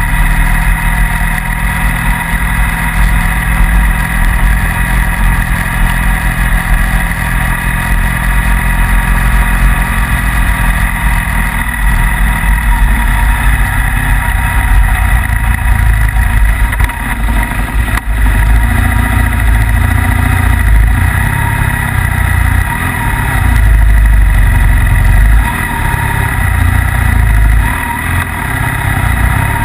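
Motorcycle engine running steadily under way, with heavy wind rumble on the microphone that grows stronger in the second half.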